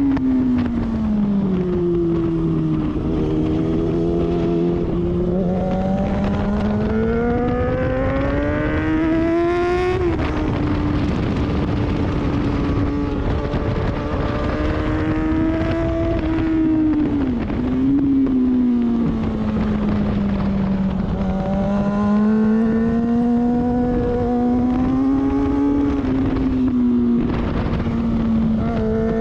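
Sport motorcycle engine under track riding: the revs fall as the bike slows into a corner, then the engine pulls and climbs in pitch to a sudden drop about ten seconds in. Later comes a brief dip, another fall, and a second climb.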